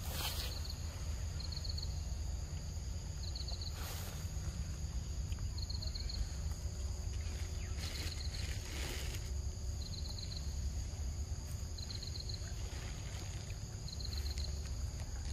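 Outdoor ambience: a short run of four or five quick high ticks repeating about every two seconds over a steady high insect-like hiss and a low rumble, with a few brief rustles.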